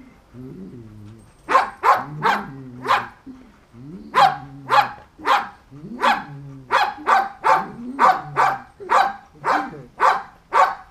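A Belgian Malinois whining, then barking over and over, about two barks a second, with whines between the barks.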